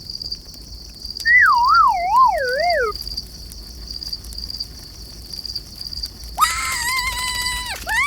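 Steady, softly pulsing chirping of crickets or similar insects. About a second in, a warbling whistle-like tone slides downward for about a second and a half, and near the end a steady held tone sounds for about a second and a half.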